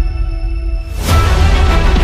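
Background music with a strong bass line; its treble is cut away at first and opens back up to full about a second in.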